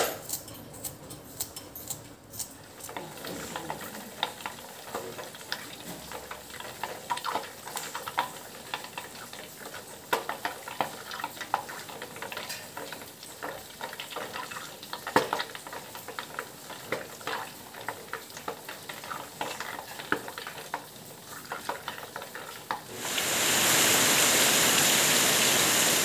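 A green vegetable being cut against an upright blade, with sharp clicks, then hot oil crackling and sizzling in a pan. Near the end, a steady rush of rain, louder than the frying, takes over.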